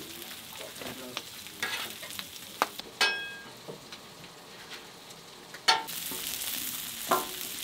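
Bacon, sausage links and hash brown patties sizzling on a hot flat-top griddle, with a few sharp clicks and knocks of utensils and food against the metal. The sizzle grows louder about six seconds in.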